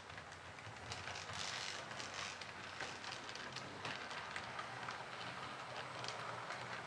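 H0-scale model train, an SU46 diesel locomotive model with a passenger coach, running along the layout's track: a steady rolling rattle with many quick wheel clicks over rail joints and points, louder after about the first second as it comes closer.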